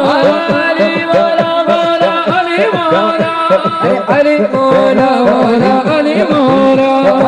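A group of men singing a Sufi qawwali into microphones, sustained melodic phrases without clear words, over a steady rhythmic accompaniment.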